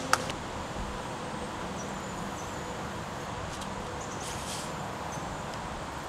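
Outdoor ambience: a steady hiss of background noise with a few faint, short, high bird chirps.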